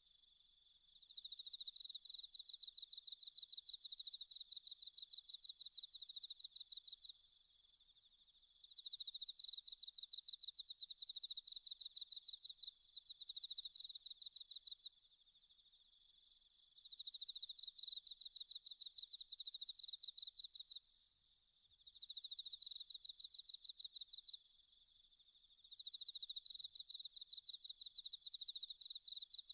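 Cricket chirping: high-pitched, rapidly pulsed trills in bouts of a few seconds, with short pauses between them.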